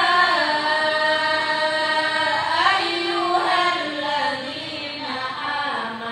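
A woman's voice reciting the Qur'an in a melodic chant through a microphone, drawing out long held notes that slowly bend in pitch.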